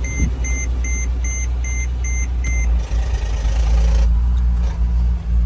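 Mercedes-Benz GLK 350's 3.5-litre V6 idling just after starting, now that its no-start fault is cured. A warning chime beeps about twice a second over the idle and stops a little past halfway.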